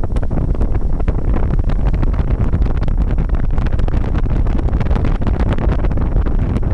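Wind rushing over the microphone of a moving car, over a steady low rumble of road and engine, with frequent small pops.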